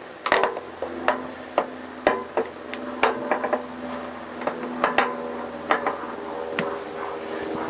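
Metal starter motor knocking and clinking against a Honda CBR1000F's engine cases as it is wiggled into its mounting hole: a string of sharp, irregular knocks, over a steady hum.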